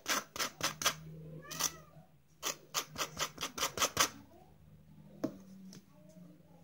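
Two quick runs of sharp clicks or taps, about four or five a second, over a low steady hum.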